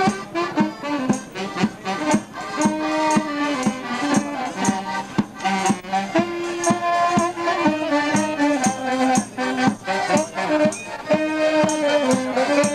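Folk dance music played by a small band of accordion and saxophone, a lively melody over a steady, regular beat.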